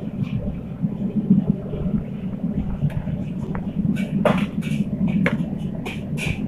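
Steady low background rumble with scattered sharp knocks and clatter of kitchen work, such as knife and utensils on wood and steel. The knocks come thickest in the second half.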